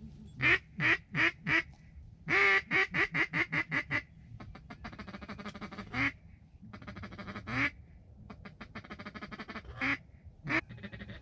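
Duck quacking in a calling sequence. Four loud quacks, then a run of about nine quacks, then stretches of rapid soft ticking chatter broken by single loud quacks.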